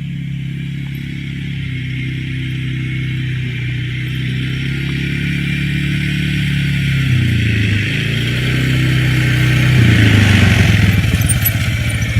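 Four-wheeler (ATV) engine running under way, with a steady pitch that changes twice, around seven seconds in and again near ten seconds, as the ride goes on.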